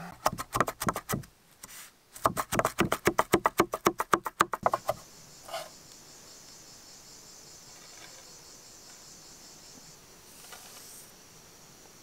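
Kitchen knife rapidly chopping fresh herbs on a wooden board, about nine quick chops a second in two runs, the second longer. After that, insects drone steadily.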